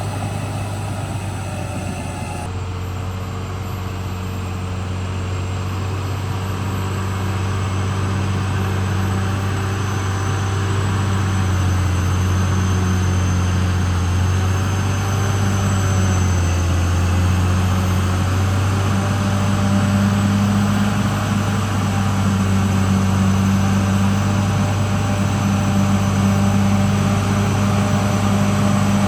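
Caterpillar D6R XL bulldozer's diesel engine running steadily under work, a low drone that wavers slightly in pitch and grows a little louder.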